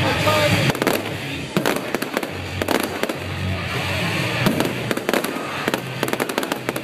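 Fireworks display going off: aerial shells and crackling effects bursting in a series of sharp cracks and pops that come in clusters.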